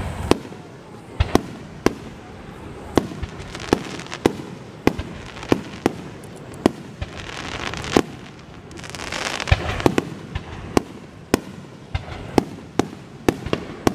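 Aerial firework shells bursting in quick, irregular succession, with sharp bangs about every half second to a second. A hiss swells up twice in the middle.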